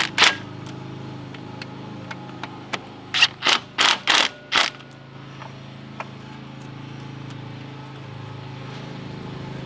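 Cordless drill/driver with a socket extension running bolts in, its motor humming steadily, with a series of short, loud bursts of rattling about three to five seconds in as the bolts seat and tighten.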